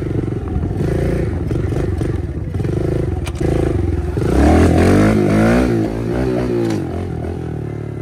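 Kawasaki KLX110 pit bike's small four-stroke single-cylinder engine running under throttle while ridden. It gives short revs in the first few seconds, then a louder, longer burst from about four to seven seconds in, its pitch rising and falling.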